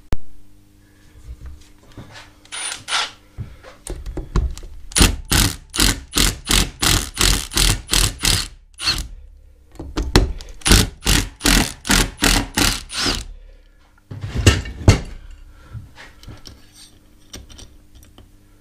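Cordless drill-driver backing out the two end-cap screws of a mobility scooter's DC motor, running in two long runs of rapid even pulses about four a second, with a short burst before and a louder one near the end.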